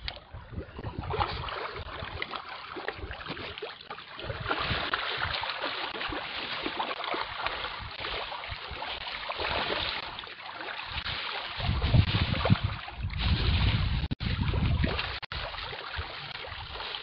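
Water splashing and churning as a crowd of fish feeds at the surface. Wind rumbles on the microphone over the last five seconds or so.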